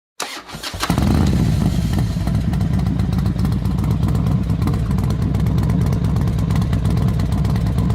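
Motorcycle engine running with rapid, even firing pulses, growing louder about a second in and then holding steady.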